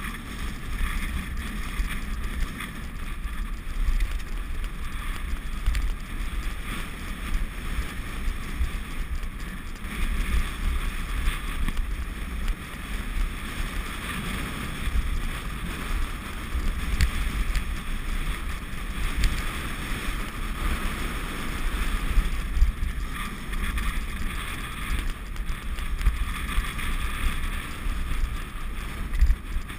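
Wind buffeting the microphone of a moving action camera: a steady, uneven rumble over the noise of travel along a dirt track.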